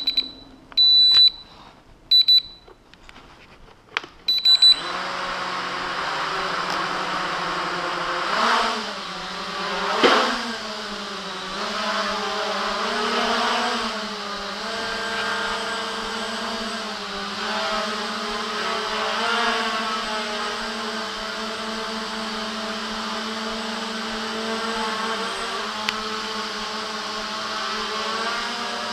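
A few short, high electronic beeps, then about five seconds in the JJRC X1 quadcopter's brushless motors spin up and run with a steady whine. Its pitch rises and falls as the throttle changes, swelling louder about eight and ten seconds in.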